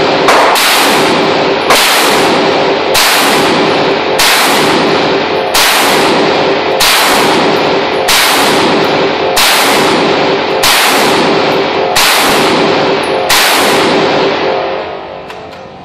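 Gunshots fired at a slow, steady pace, about a dozen, roughly one every 1.3 seconds, each ringing out in a long echo. The shooting stops a little before the end.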